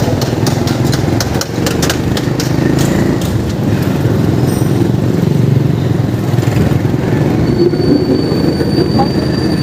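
Vehicle engine running with road and traffic noise while moving along a city street, with a run of clicks in the first few seconds.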